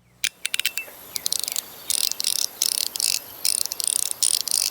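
WJ Creation mechanical fidget slider being slid back and forth: quick runs of sharp clicks in repeated clusters, with a short faint ringing ping after one of the first runs.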